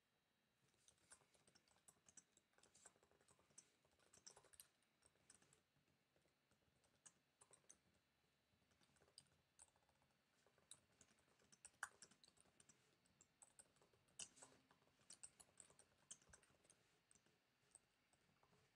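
Faint, irregular clicking of typing on a computer keyboard, in quick clusters with short pauses between.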